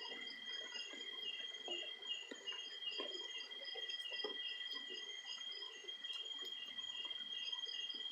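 A chorus of insects: a steady high trill at two pitches, with a repeating chirp about three times a second. Soft, irregular ticks and patter run underneath.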